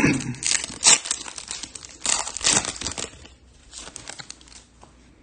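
Foil trading-card pack wrapper crinkling and being torn open by hand, in several sharp bursts over the first three seconds, then fainter handling.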